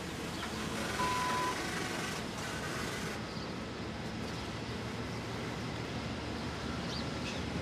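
Passenger carriages of the Overland rolling slowly past along a platform as the train pulls away, a steady low rumble. A single short beep sounds about a second in.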